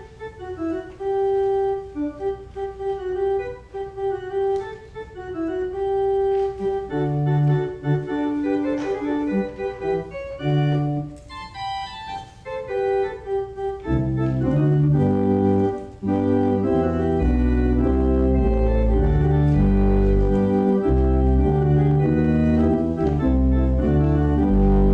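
Organ playing a closing voluntary after the benediction: held, overlapping chords in a lighter upper register at first. A little over halfway through, deep bass notes come in and the music grows fuller and louder.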